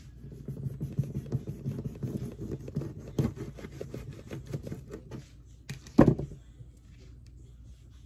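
Rapid pattering and scraping from things being handled on a kitchen counter, then one loud thump about six seconds in.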